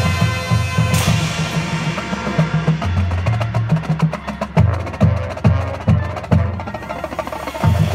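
Marching band playing: a sustained band chord ends on a sharp hit about a second in, then the drumline takes over with rapid snare strokes over low bass drum notes at different pitches.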